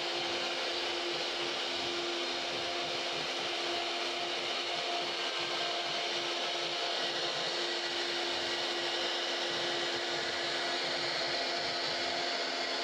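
CNC router spindle running steadily as its bit carves a relief pattern into a wooden bed panel: an even cutting hiss with a few held tones from the spindle.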